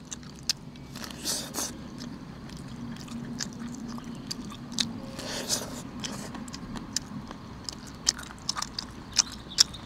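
A person biting and chewing boiled corn on the cob, with many small sharp clicks and two longer bites, about a second in and halfway through. A faint steady low hum runs underneath.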